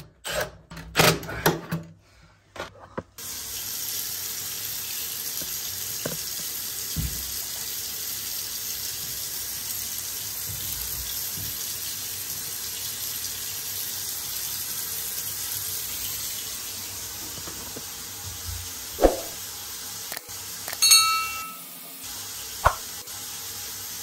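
A cordless drill/driver runs in a few short bursts. Then a faucet pours a steady stream of water into a sink basin and down its drain. A few clicks and knocks come near the end.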